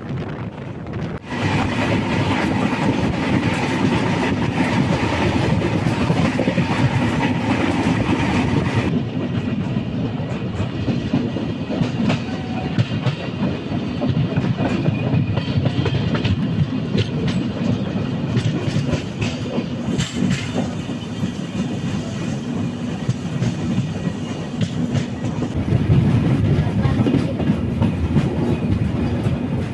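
Kongu Superfast Express's LHB coaches running along the track: a steady rumble with the wheels clacking over the rail joints. It gets louder about a second in and swells again near the end.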